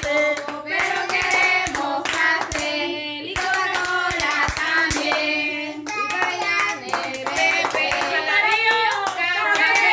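A small group of voices singing a birthday chant in Spanish, with hand clapping.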